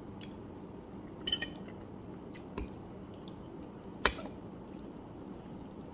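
Metal fork clinking against a ceramic plate while twirling spaghetti: a quick cluster of clinks a little over a second in, another at about two and a half seconds, and the sharpest about four seconds in.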